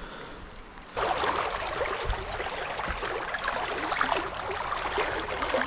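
Fast, shallow river water rushing and gurgling over stones close by. It starts suddenly and loud about a second in, after a faint steady hiss.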